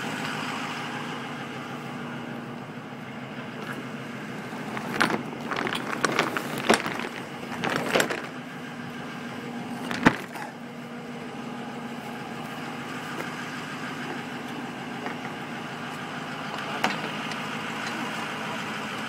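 The Ford E-450's 6.0 L Power Stroke diesel V8 idling steadily. Over it come a run of metal clanks and rattles from about five to eight seconds in and a sharp knock at about ten seconds, from the truck's rear cargo door and latch hardware being closed and worked.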